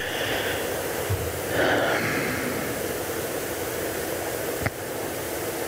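Steady hiss of background noise in the recording, with a couple of soft, brief sounds early on and a single sharp click about three-quarters of the way through.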